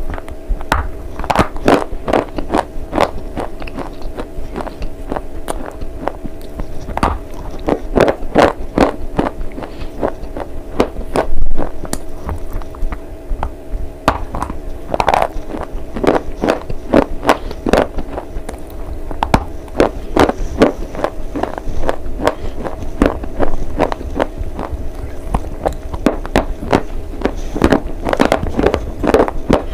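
Close-up crunching of edible slate (slate pencil pieces) being bitten and chewed: a dense, irregular run of sharp, brittle cracks, with one especially loud crunch about eleven seconds in. A steady hum runs underneath.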